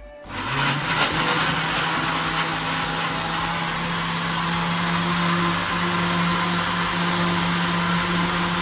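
Electric countertop blender switched on just after the start, its motor running at a steady pitch as it purées peaches with water into juice.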